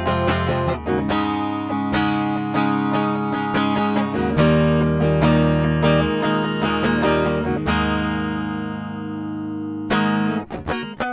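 Gibson SG Standard electric guitar with a Seymour Duncan Phat Cat, a P-90-style single-coil neck pickup, played with a clean tone: strummed and picked chords. Near the end one chord is left to ring and fade for about two seconds before the playing starts again.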